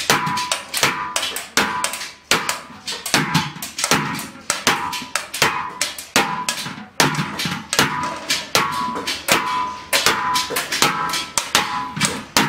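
Hand hammer striking a large sheet-metal pan again and again, about three blows a second, each blow ringing with a metallic tone as the pan is hammered into shape.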